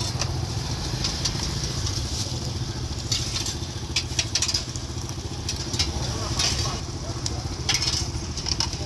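An engine running steadily at idle, a low even drone, with irregular sharp clicks of metal tongs against the grill wire and steel tray of a charcoal grill.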